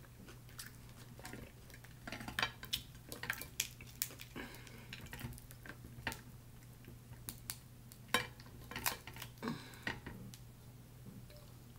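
Snow crab leg shells being cracked and snapped apart by hand: a run of irregular sharp cracks and clicks, over a steady low hum.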